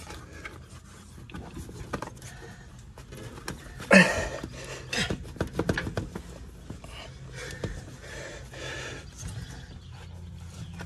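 Men grunting and breathing hard with effort while forcing a compressed rubber air-spring bag up into a truck's coil spring, with one loud sharp grunt about four seconds in. A steady low hum runs underneath.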